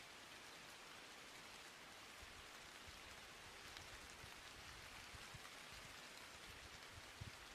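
Near silence: a faint, steady hiss with no voice or music.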